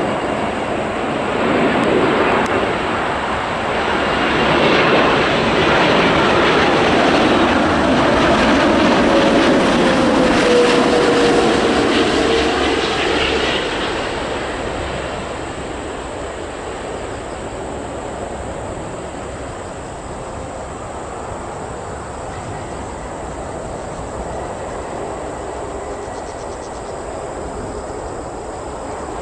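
Boeing 787 airliner's jet engines passing close on its landing approach: a rushing roar that swells over several seconds with a tone sliding down in pitch as it goes by, then fades to a steadier, lower rumble.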